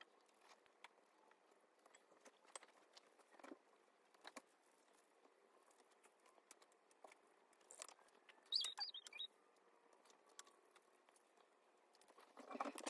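Near silence, with faint scattered taps and light scratches of a watercolour brush working on paper and in the paint pans, and a brief high squeak about eight and a half seconds in.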